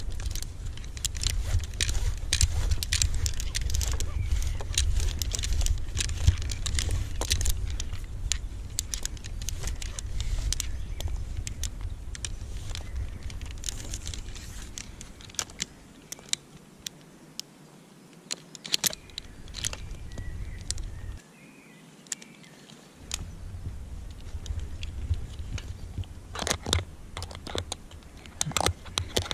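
Metal climbing hardware (carabiners and rope devices on a tree-climbing harness) clinking and clicking as gloved hands handle it, with a cluster of clicks near the end. A low rumble of wind on the microphone runs under it and drops out briefly about two-thirds of the way through.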